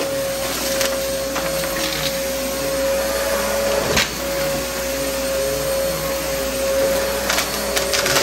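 VacMaster vacuum cleaner running with a steady motor whine, crunching something crunchy hidden under a rug, with a few sharp crackles and a brief break in the whine about halfway through.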